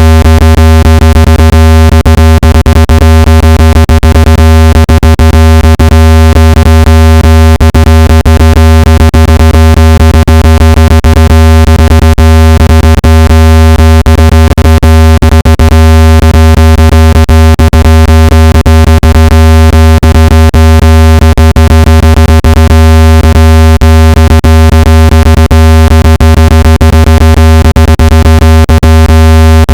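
Synthetic speaker-cleaning tone for pushing dust and moisture out of a phone speaker: a very loud, steady, low buzzing tone with many overtones, crackling with irregular clicks throughout.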